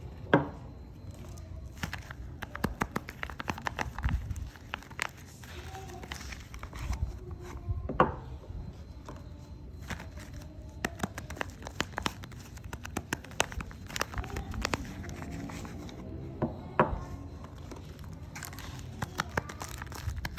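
Soap wrapper being unpacked by hand: continuous crinkling and tearing of the wrapping, with a few sharper taps now and then.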